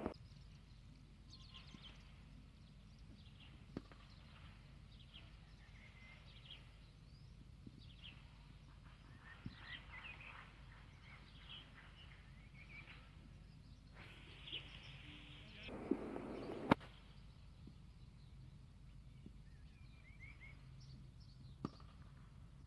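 Quiet cricket-ground ambience with birds chirping throughout, a few sharp cracks of bat on ball, the last just before the end, and a brief louder stretch of noise about two thirds of the way in.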